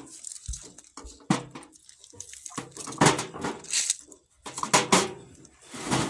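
Glass canning jars knocking against each other and against a large metal water-bath canner as they are set in one by one: several sharp knocks, the loudest about three seconds in.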